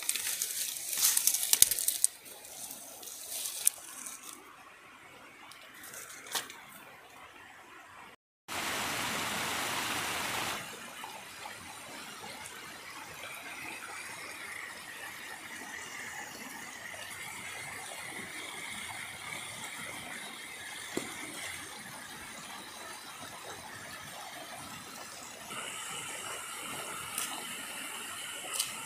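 Dry bamboo sticks and leaf litter crackling and rustling as they are gathered by hand. After a cut about eight seconds in, a rocky stream runs steadily over stone.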